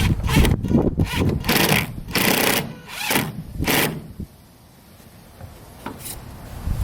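Cordless drill driving a set screw to secure a plastic vent pipe, run in several short bursts over the first four seconds and once more briefly near the end.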